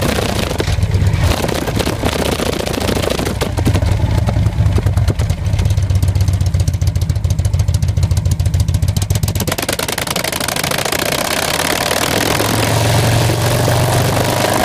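Victory Cross Country's Freedom 106 V-twin ridden hard through the gears, its exhaust note through a stage 1 Tri Oval exhaust heard from the rear fender. The pulsing note runs hard and fast, drops off abruptly about two-thirds of the way through, then builds again near the end.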